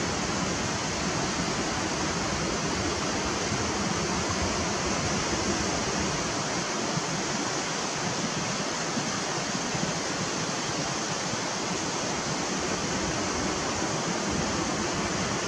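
Steady rushing of ocean surf breaking on the beach, an even wash of noise with no separate wave crashes standing out.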